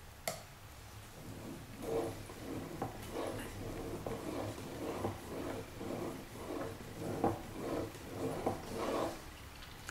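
Steel knife blade stroked back and forth across a whetstone while one side of the edge is sharpened: a regular scraping of about two to three strokes a second that starts about a second and a half in.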